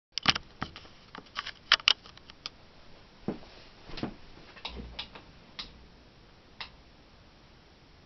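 A string of irregular sharp clicks and a few duller knocks, about fifteen in six seconds and loudest in the first two seconds, then only a faint steady hiss.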